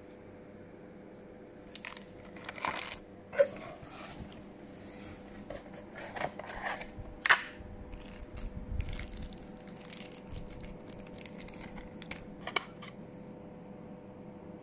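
A phone's cardboard box and plastic bags being handled: rustling and crinkling with a few sharp knocks and clicks, over a faint steady hum.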